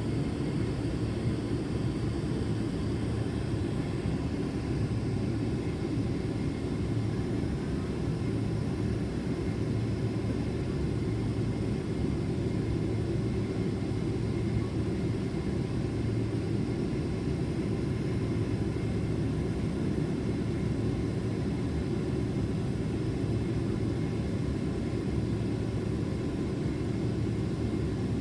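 Steady low rumble inside the cabin of a Boeing 767-400ER, the sound of its engines and airflow heard through the fuselage, with faint steady tones above it and no change in level.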